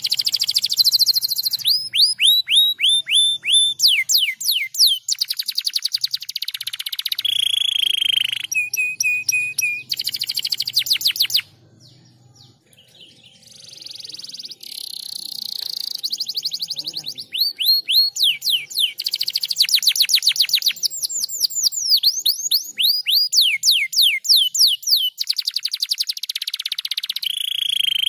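Domestic canary singing, a long run of fast trills and rolls of rapidly repeated notes, many of them sweeping down in pitch. The song breaks off for about a second and a half near the middle, then starts quietly and builds back up.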